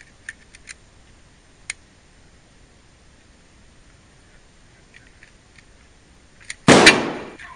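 A single shotgun blast, sudden and very loud, about seven seconds in, dying away over most of a second. Before it come a few faint short clicks.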